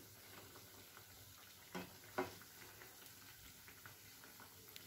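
Faint steady sizzling of chhana dough sweets deep-frying in refined oil in a kadai. Two light knocks come about two seconds in.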